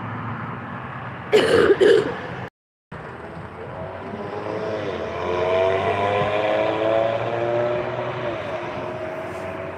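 Street traffic: a motor vehicle's engine rising in pitch and getting louder as it drives past, over a steady low hum. Before it there are two short loud sounds, and then the audio cuts out for a moment.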